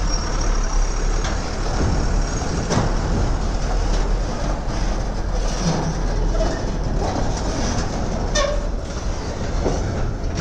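Container-bodied car-carrier truck driving slowly past, its diesel engine rumbling steadily while the long steel trailer body rattles, with a few sharp knocks and clanks as it rolls over rough ground.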